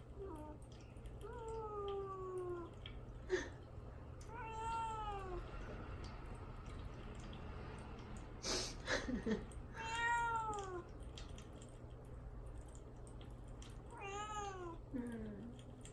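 A kitten meowing plaintively over and over, about five long rising-and-falling meows, crying to be let out of the cage where it is kept fasting before neutering. A couple of sharp knocks come between the meows.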